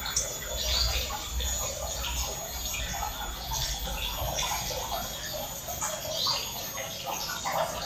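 Water being poured into a small plastic glue bottle, with small knocks and handling of the bottle.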